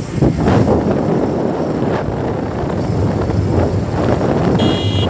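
Wind buffeting the phone's microphone on a moving motorbike, with the bike's engine and road noise underneath. A brief high-pitched buzz comes in near the end.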